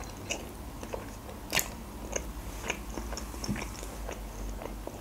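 Close-miked chewing of a mouthful of soft chocolate-topped waffle with kiwi: a run of small irregular mouth clicks and smacks, with one sharper click about a second and a half in.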